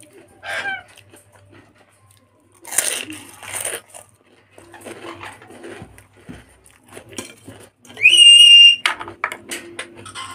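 Crunching and chewing of fried papad crisps, with two loud crunches about three seconds in and smaller crackles after. About eight seconds in a loud, steady, high-pitched tone sounds for nearly a second.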